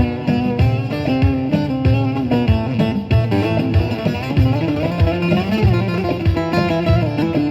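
Bağlama saz with a carved bowl and 42.5 cm neck, playing a lively dance tune in a quick run of plucked notes, over a steady low beat about twice a second.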